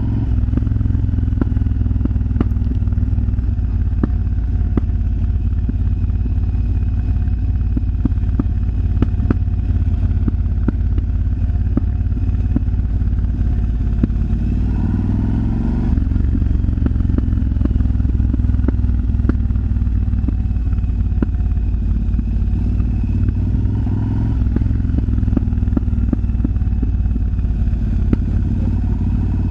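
Yamaha BT1100 Bulldog's 1100 cc V-twin engine running steadily, with irregular sharp pops from the exhaust throughout.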